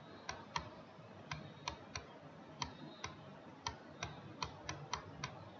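Faint, sharp clicks, about a dozen at irregular spacing, two or three a second, from computer input while a word is hand-written onto an on-screen whiteboard.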